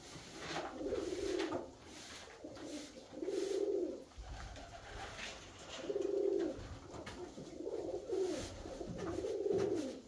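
Alföldi-Körösi tumbler pigeons cooing: a series of about five low coos, each half a second to a second long, with faint clicks between them.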